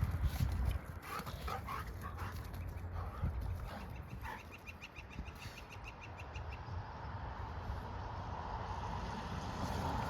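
Golden retrievers playing, with a few short high whimpers and yips during the first half, over a low rumble.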